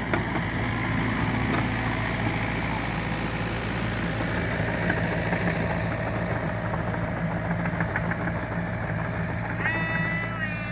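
Diesel engine of a LiuGong mini excavator running steadily while it works. Near the end a high-pitched call cuts in over it.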